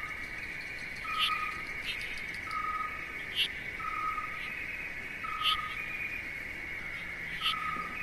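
Night-time nature ambience: a short, level owl-like hoot repeated about every second and a half over a steady high insect trill, with brief higher bird chirps in between.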